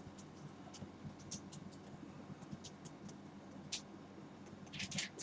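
Faint scattered taps and scratches of a stylus writing by hand on a drawing tablet, over a faint steady low hum.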